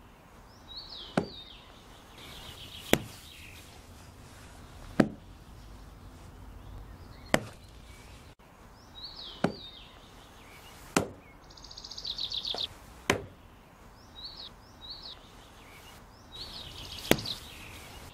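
Sharp hand slaps on picture cards lying on a blanket over stone ground, one about every two seconds, as children take turns hitting the cards to flip them. Birds chirp between the slaps, with a short fast trill about twelve seconds in.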